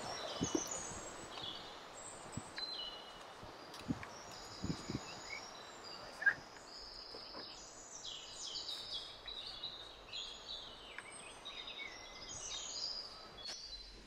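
Small songbirds chirping and twittering faintly in the background, many short high notes overlapping, busiest in the second half and stopping abruptly just before the end. A few soft low thumps come in the first few seconds.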